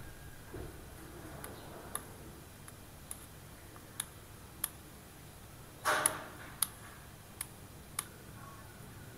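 Parts of a Daiwa PR100L baitcasting reel clicking as they are handled and fitted together: a series of irregular sharp clicks, with a louder brief rattle about six seconds in.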